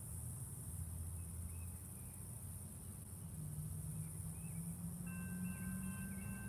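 Steady high-pitched drone of insects with a low hum underneath and a few faint bird chirps; about five seconds in, a few steady high tones come in.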